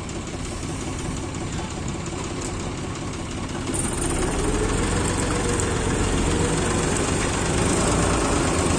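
Heavy diesel engines of a combine harvester and a backhoe loader running. About four seconds in the sound grows louder and higher as an engine revs up.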